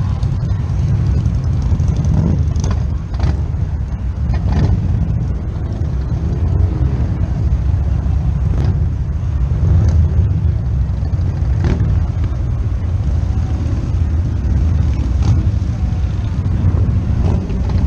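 Wind buffeting the camera microphone: a loud, steady low rumble, with a few brief knocks.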